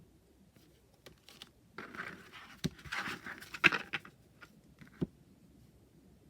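Oracle cards being handled: a rustle of card stock sliding against card for a couple of seconds, with a few light taps as cards are set down or squared.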